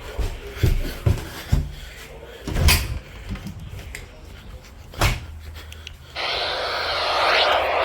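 A series of knocks and bumps, like a door and things being handled, then about six seconds in a steady rushing noise cuts in suddenly and keeps going.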